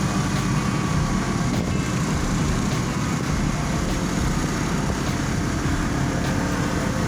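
Honda PCX scooter's single-cylinder engine running steadily under load while climbing a steep hill, straining on the grade.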